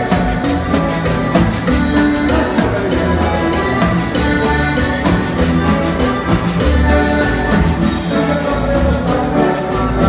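Live tropical cumbia band playing loudly through a PA, with a pulsing bass, steady percussion and a saxophone among the instruments.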